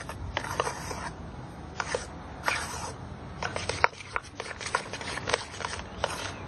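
Metal spoon scraping and clicking against a stainless steel pot while stirring thick mashed potatoes, in quick, irregular strokes.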